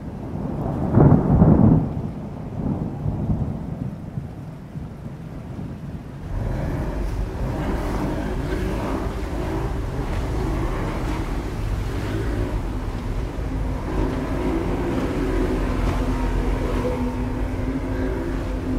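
A deep rumble like thunder swells and fades in the first few seconds. From about six seconds in, a small motorboat runs steadily at speed: a low engine drone with the rush of water along the hull.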